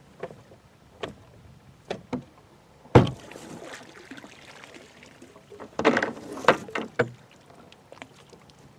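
Homemade stake driver, a 3-inch tube with holes drilled in it, being driven down over a bamboo stake into the lake bottom: separate knocks about once a second, the loudest about three seconds in, then a louder cluster of knocks with water sloshing out of the tube around six to seven seconds in.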